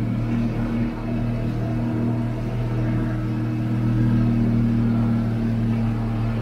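Mercury 90 hp outboard motor running steadily at speed, a constant drone that holds one pitch.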